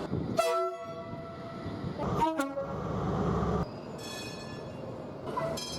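British train horns sounding in short blasts, several separate clips cut together: a blast about half a second in, a brief one about two seconds in followed by a passing train's rumble, then higher horn tones and another blast near the end.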